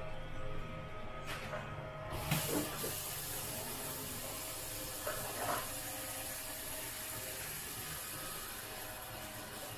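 Kitchen faucet water running into a clear plastic tub as it fills, starting about two seconds in, with a few knocks from the tub being handled.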